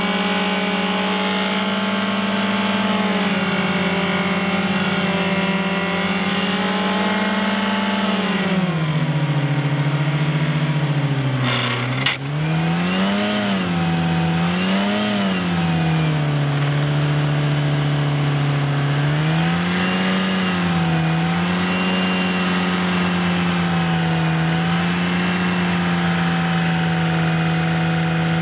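Ford Fiesta's petrol engine held at full throttle in fourth gear, revving close to the red line as it spins the wheel-less front brake disc. The revs sag about eight seconds in, there is one sharp short noise near twelve seconds, and the revs then swing up and down a few times before settling high again.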